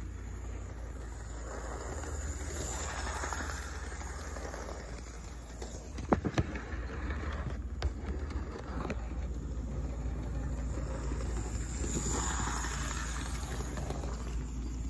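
Electric model train running on its track, the whir of its motor and wheels swelling as it passes close, about two seconds in and again near twelve seconds, over a steady low hum. A few sharp clicks about six seconds in.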